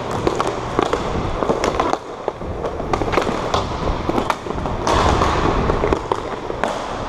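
Inline roller hockey play on a plastic tile rink floor: a steady rumble of skate wheels rolling, broken by many sharp clacks of sticks and puck striking the floor.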